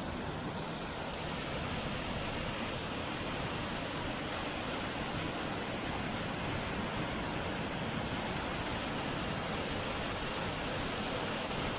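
Steady rushing of a mountain stream's waterfall, an even hiss with no breaks.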